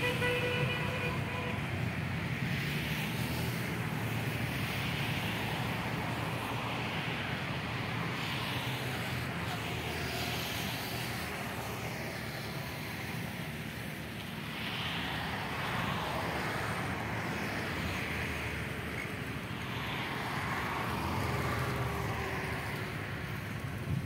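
Steady low rumble of distant road traffic, an even background hum with no distinct bird calls standing out.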